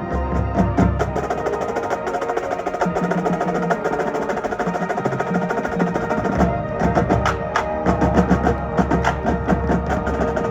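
Marching band playing: sustained chords over a busy, rapid drum line. Deep bass drums come back in strongly about six and a half seconds in.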